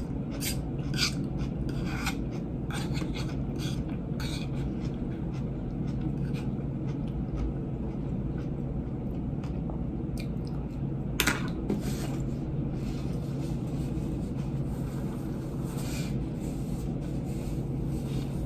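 Eating sounds: a white plastic fork scraping and clicking in a salad bowl, with chewing, in short scattered strokes over a steady low hum. The sharpest click comes about eleven seconds in.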